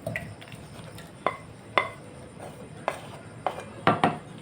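Metal spoon clinking and tapping against cookware as cooked tomato and onion are scooped into a mixer jar: about six sharp clinks spread across a few seconds, two close together near the end.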